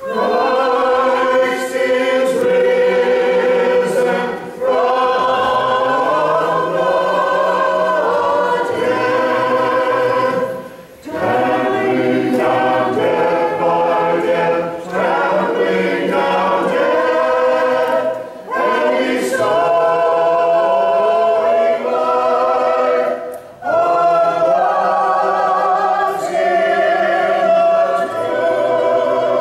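Church choir singing Orthodox liturgical chant a cappella, in several voices, in long phrases with brief breaks between them.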